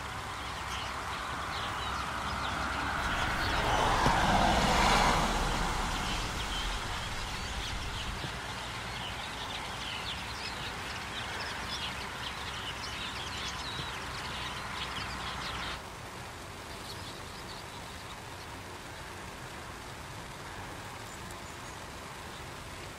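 A vehicle passes on the road, swelling to its loudest about four to five seconds in and then fading, over steady rain. Small finches twitter through the first two-thirds, and the sound drops abruptly to quieter rain about sixteen seconds in.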